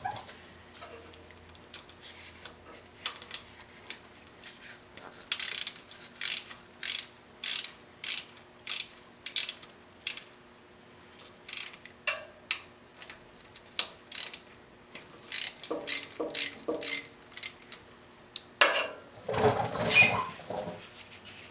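A 10 mm ratchet wrench clicking in short runs, swing after swing, while loosening the bolts of the oil pan bypass cover on a C5 Corvette's engine. There is a louder clatter near the end.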